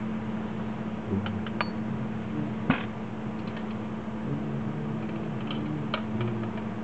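Light clinks and taps of glass and metal as a glass teapot's lid is lifted off and metal tongs are put in and knock against the glass pot, a few separate clicks with the sharpest about a third of the way in, over a steady hum and hiss.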